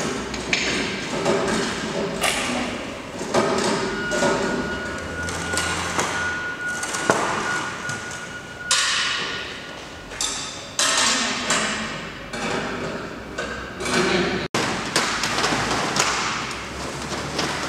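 Irregular knocks and thuds of metal being handled as an aluminium roller shutter door's head box and slats are fitted and pushed into place.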